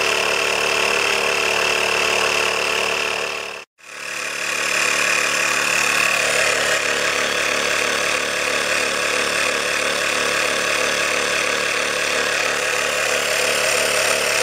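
Portable 12 V tyre air compressor running steadily while pumping air into a car tyre through its valve hose: a noisy, rattly buzz with a steady high whine. The sound breaks off for an instant about four seconds in and then carries on.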